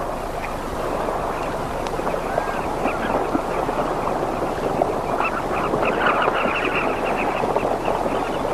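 A colony of southern carmine bee-eaters calling: many short, rapid chirping calls overlapping one another, growing denser from about five seconds in.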